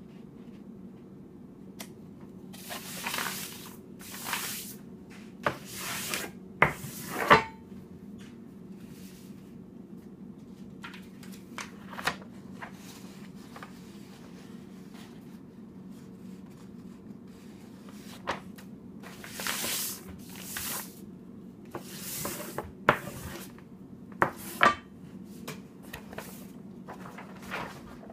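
Large sheets of paper being folded and smoothed with a wide bristle brush: intermittent swishes and rustles of paper and bristles, with several sharp taps, over a steady low hum.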